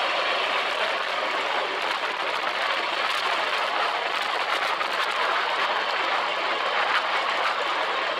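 Sand rail (dune buggy) driving across sand dunes, recorded on board: a steady, even mix of engine and rattling chassis noise.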